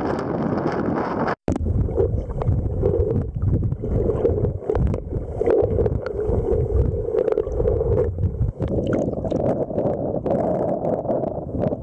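Wind buffeting the camera microphone at first, then, after a sudden cut, muffled underwater sloshing and bubbling with small clicks as the camera is held submerged in the water. Near the end the sound changes to water lapping and splashing around the camera at the surface while swimming.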